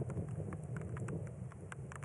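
Scattered raindrops in a desert storm tick irregularly over a steady low wind rumble.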